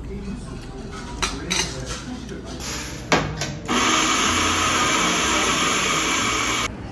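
Dishes and utensils clinking and clattering, then a loud steady hiss for about three seconds that cuts off suddenly.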